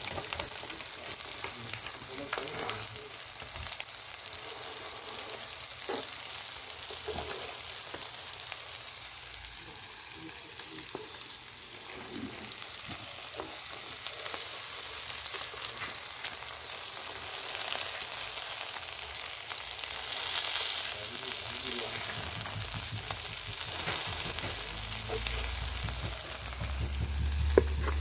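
Egg-battered pollack fillets sizzling in hot oil on a griddle, a steady hiss, with scattered clicks and scrapes of a plastic spatula moving them. A sharp tap comes just before the end.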